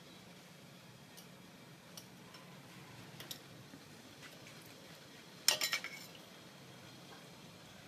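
Metal ladle clinking against a small stainless steel bowl while stirring liquid: a few light taps, then a quick run of louder clinks about five and a half seconds in.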